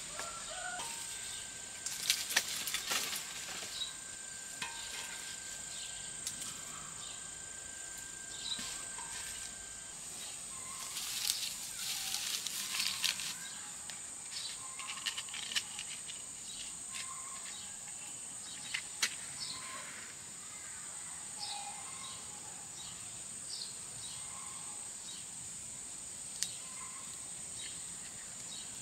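Steady high-pitched insect chorus, with scattered crackles and snaps of a wood fire being laid and lit, bunched into a couple of busier spells, and a few short chirps.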